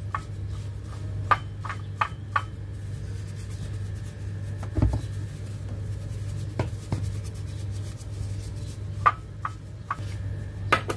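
Spice powder being mixed by a gloved hand in a ceramic bowl: soft rubbing with scattered light clicks and taps against the bowl, over a steady low hum.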